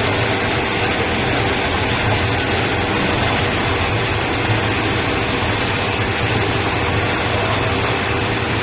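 CNC gantry drilling machine drilling a metal heat exchanger tube plate: a steady machine hum with a few held tones under a constant hiss of cutting and coolant spray.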